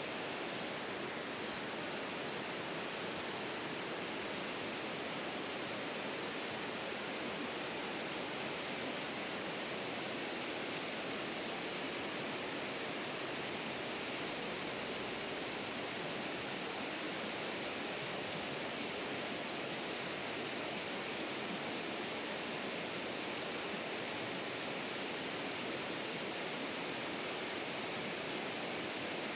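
Steady rushing of flowing river water, an even hiss that holds constant throughout.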